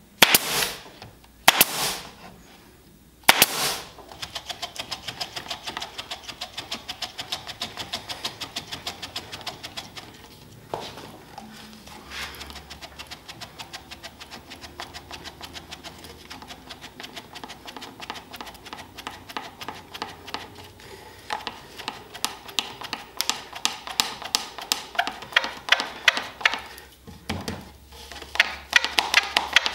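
Three sharp shots, in keeping with a brad nailer fastening the plywood jig, followed by a rapid, even clicking with a couple of brief pauses.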